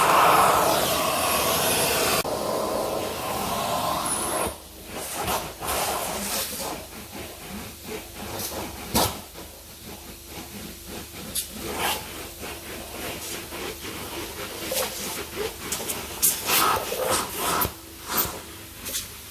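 A car's plastic interior door card being cleaned by hand: a steady hiss for the first few seconds, then irregular wiping, rubbing and handling noises with scattered clicks.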